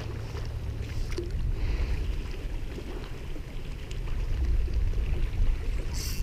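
Shallow saltwater sloshing and swishing around a wading angler's legs, over a steady low rumble of wind on the head-mounted camera's microphone; a brief hiss near the end.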